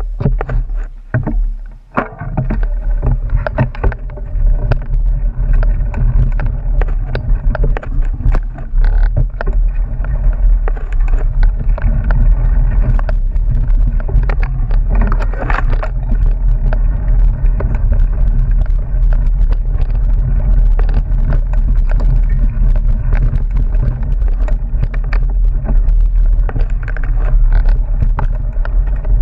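Mountain bike riding over rough dirt singletrack, heard from a bike- or rider-mounted action camera: a steady deep wind rumble on the microphone with continual rattling and knocking from the bike over stones and roots.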